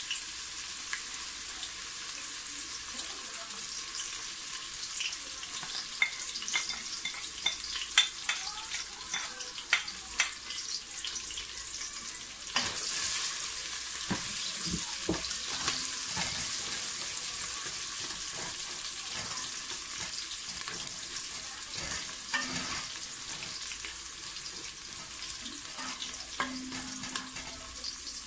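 Sliced onions frying in hot oil in a stainless steel pressure cooker: a steady sizzle with scattered crackling pops. From about halfway, a spoon stirs them, knocking and scraping against the pot.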